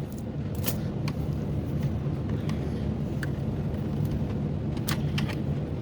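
A few light clicks and taps of the opened laptop's plastic case and parts being handled, over a steady low background hum.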